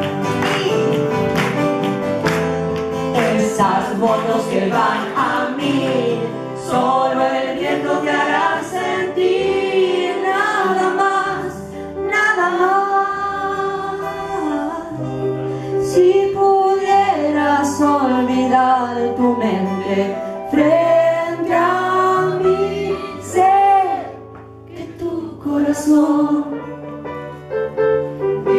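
Live music: a woman singing over upright piano accompaniment, with a brief softer passage near the end.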